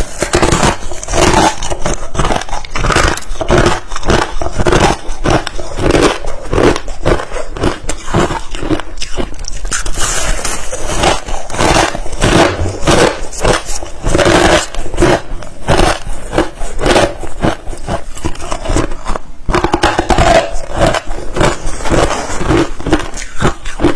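Ice being bitten and crunched between the teeth, loud and in rapid, irregular crunches, with no pause.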